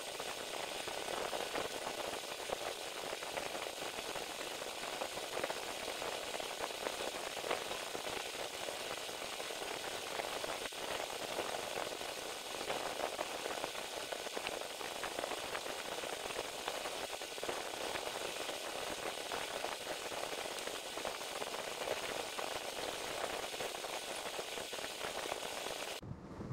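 Pen and pencil scratching on grid paper: a steady, dense scratching with fine crackles throughout.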